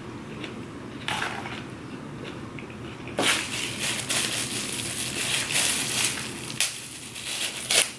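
Crunchy food being chewed close to the microphone: a brief crunch about a second in, then steady, loud crunching from about three seconds in until just before the end.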